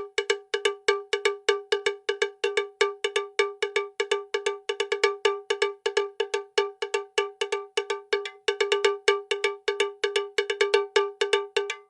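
A bell-like tone on one unchanging pitch, struck rapidly and evenly about five times a second. It stops abruptly at the end.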